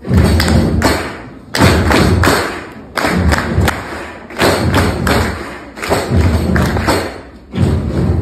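A crowd thumping in unison in repeated loud bursts, about one every second and a half, each burst a quick run of thuds.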